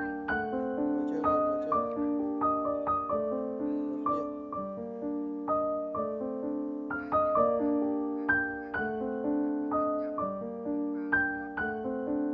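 Background music: a slow solo piano melody of ringing, decaying notes, struck about twice a second.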